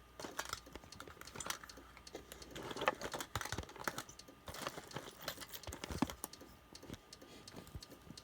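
Irregular light clicks and taps, spaced unevenly, over a faint steady hum.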